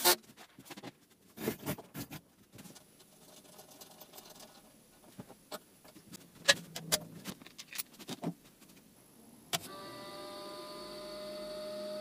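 Cordless drill-driver run in short bursts, driving screws into the hardboard side panels of a compressor case, among clicks and knocks of the panel being handled. About nine and a half seconds in, a sharp click, then a converted refrigerator compressor running with a steady, quiet hum as it fills its tank.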